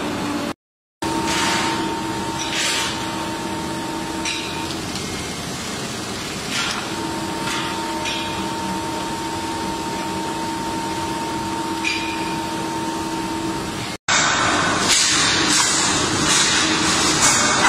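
Aluminium rolling mill running, a steady machine hum with a whine and a few short knocks. About 14 s in the sound cuts to a louder, hissing run of the mill.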